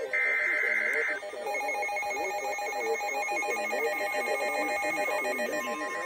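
An EAS SAME data burst from a NOAA weather radio, a harsh two-tone digital screech, lasts about a second at the start. Then several weather radio receivers beep together in a repeating electronic alert pattern.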